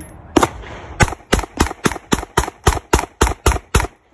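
Pistol fired at a paper target: one shot, then a rapid string of about a dozen shots, about four a second, that stops suddenly just before the end.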